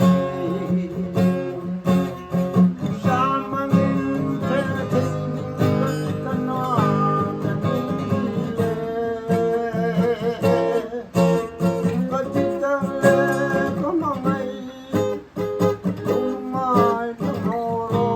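Song accompaniment on acoustic guitar, strummed and plucked, with a wavering melody line carried above it.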